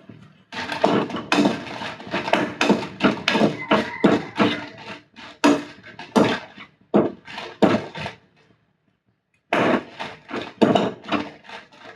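A cooking utensil knocking and scraping in a pan, quick and irregular at several strokes a second, as roasting chillies are stirred; the strokes pause for about a second two-thirds of the way through.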